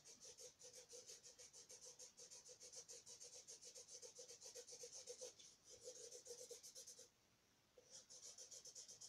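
Faint scratchy rubbing of a black felt-tip permanent marker scribbled rapidly back and forth on paper to fill in a drawing, about four to five strokes a second, with a brief pause about seven seconds in.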